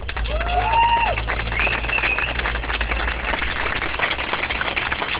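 Crowd clapping and cheering, with a couple of voices whooping in the first two seconds.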